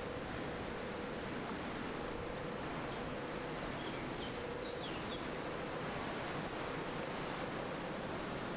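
Steady wind through forest trees, with a few faint, short bird chirps around the middle and a thin, steady high insect drone.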